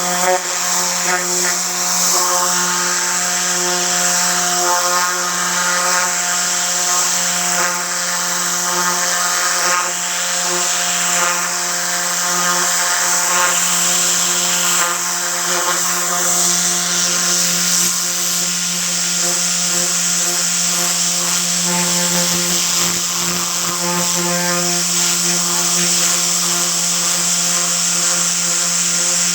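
Tornador compressed-air cleaning gun running continuously: a steady whirring hiss of air from its spinning nozzle tube, with a low hum underneath.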